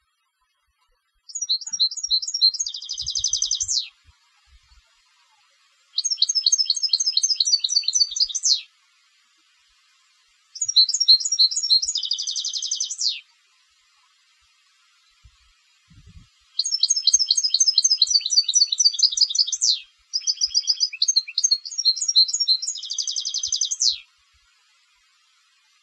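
Contest-bred European goldfinch singing in five phrases of a few seconds each, with short pauses between. Each phrase is a run of rapid, high twittering notes, and three of them end in a dense, fast trill.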